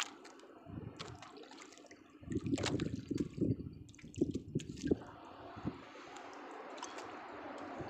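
Water lapping and splashing against the hull of a small wooden boat, in a louder run of irregular splashes from about two to five seconds in, with a few small clicks on top.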